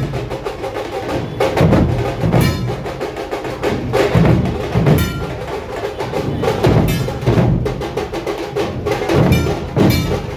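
Dhol-tasha drumming: big barrel dhols and tasha drums playing a fast, dense rhythm, with heavy low beats under sharp cracking strokes.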